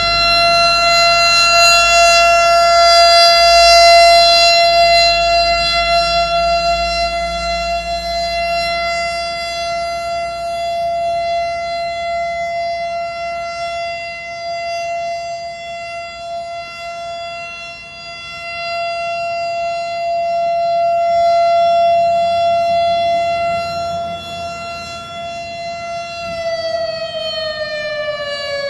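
Civil defense siren sounding a nuclear-attack warning: one steady, held pitch whose loudness swells and fades, then begins to fall in pitch near the end.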